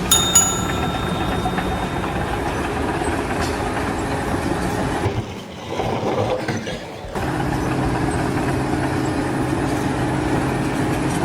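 Steady engine or machinery noise, with a sharp ringing hit right at the start and two brief drops in level midway.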